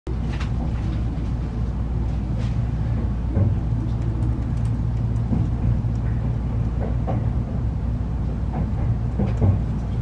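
Cabin noise inside an E657-series limited express electric train pulling out of the station: a steady low rumble from the running gear and wheels, with a few light knocks scattered through it.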